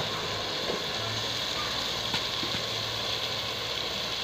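Steady sizzling of onion-tomato masala frying in a metal pot as chopped cauliflower is tipped in, with a few faint ticks.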